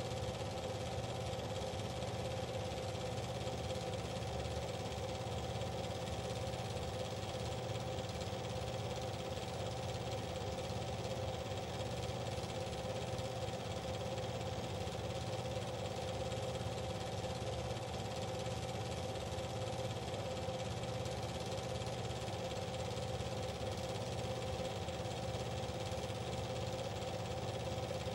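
A steady mechanical hum made of several fixed tones, with a faint low pulsing, that does not change at all.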